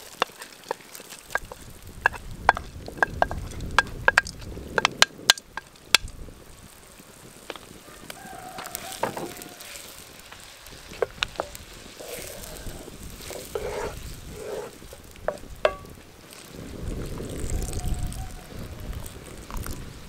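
A wooden spoon scrapes bulgur off a plate into a wide pan of simmering liquid, then stirs it. A quick run of sharp clicks and taps of the spoon against the plate and pan comes in the first six seconds, with scattered taps later over the sizzle of the hot liquid.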